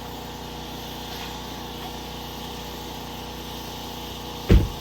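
A small engine running steadily, with one loud low thump near the end.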